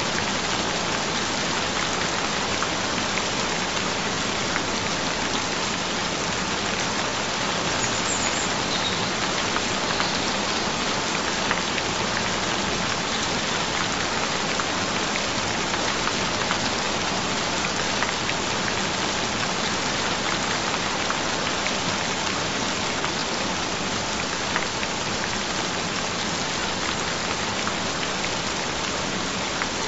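Steady recorded rainfall, an even hiss of drops falling on a surface, with faint low steady tones underneath.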